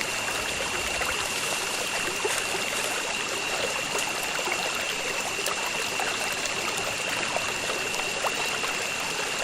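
River water flowing and trickling in a steady, even stream, with a faint steady high-pitched whine running over it.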